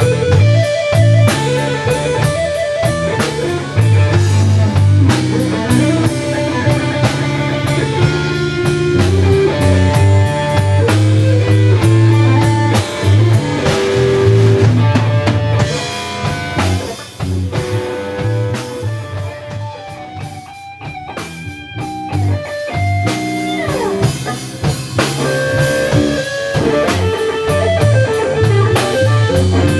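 Live Texas blues-rock band playing: electric guitar over bass and drum kit. About two-thirds of the way through the playing thins out and drops quieter for a few seconds, then the full band comes back in.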